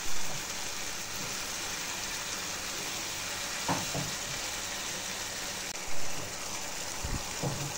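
Onion-tomato spice masala sizzling steadily in hot oil in a pan as thick yogurt is poured in and worked in with a metal slotted spatula, with brief louder moments near the start and about six seconds in.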